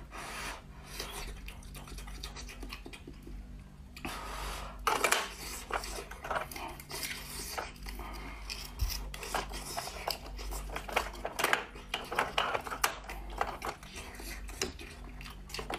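Raw oysters being shucked with a short oyster knife: the blade scrapes and grates against the shell, with irregular clicks and clacks as the shells are pried apart and knock together.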